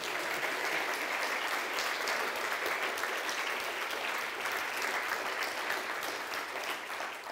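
Audience applauding: many hands clapping in a steady, dense patter that begins to fade near the end.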